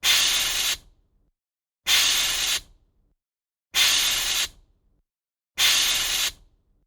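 A short hiss sound effect, repeated four times: each hiss lasts under a second, and they come about two seconds apart.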